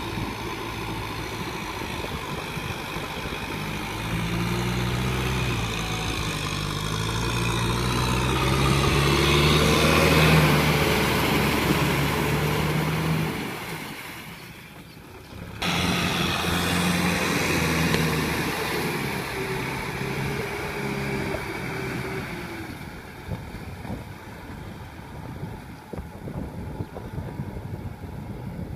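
Kubota M6040SU tractor's diesel engine running under load as it drags a rotary tiller through deep paddy mud, its pitch rising to its loudest about ten seconds in. The engine sound drops away briefly around fourteen seconds in, then runs again and slowly fades.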